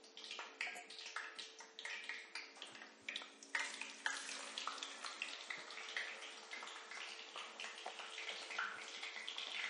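Food frying in hot oil in a pan, a continuous crackle of many small pops and sizzle, with a faint steady hum beneath.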